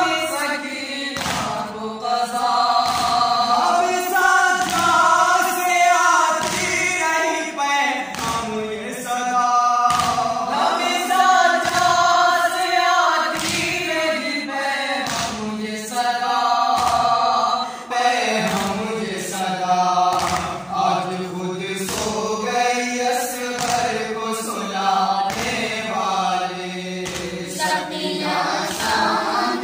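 A small group of men chanting an Urdu noha, a Shia lament, unaccompanied and in unison, with rhythmic matam: open-handed chest-beating thumps about once a second.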